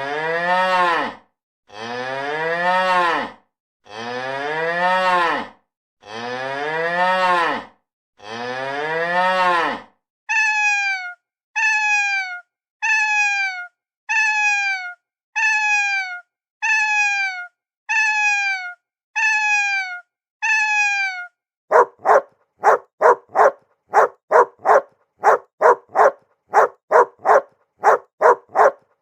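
A cow mooing five times in long, arching calls, then a cat meowing nine times in short, falling calls, then a dog barking rapidly over and over from about two-thirds of the way in.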